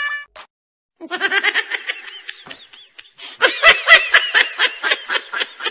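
A person laughing in quick, repeated bursts, starting about a second in and getting louder past the middle.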